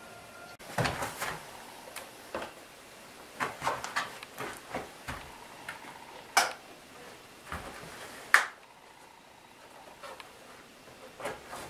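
Scattered wooden knocks, clicks and scrapes from working at a plywood steam box, with the two sharpest knocks about six and a half and eight and a half seconds in.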